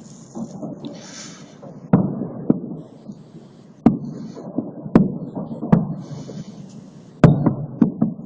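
Salute fireworks shells bursting overhead: a string of sharp booms at irregular intervals, about nine in eight seconds, several close together near the end, each trailing off in a low rumbling echo.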